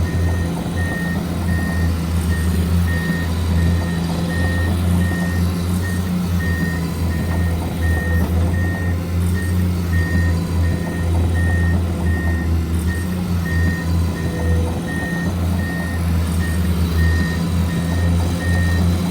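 Radio-controlled construction model's sound unit playing a steady low diesel-engine hum with a reversing beeper, a single high tone pulsing a little more than once a second throughout.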